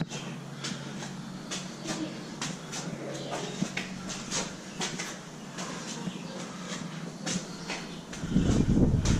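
Footsteps climbing stone stairs, about two steps a second. A loud low rumble starts near the end.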